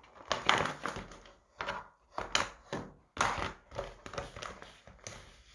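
Small bag items and cosmetic cases being handled and set down on a surface: a string of irregular light clicks, taps and knocks, about six clusters over the few seconds.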